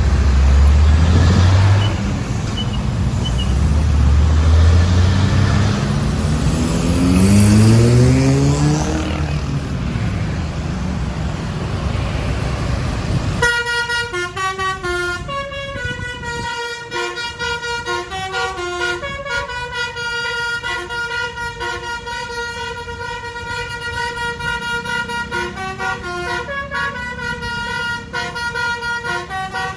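A bus engine running and revving up, its pitch rising. Then, a little under halfway through, a bus's basuri telolet horn plays a long melody of stepped, flute-like multi-tone notes, held and repeated.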